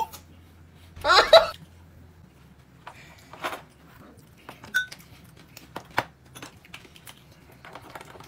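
Tableware clinking during a meal: scattered light clicks and knocks of chopsticks and bowls, with a short voiced exclamation about a second in.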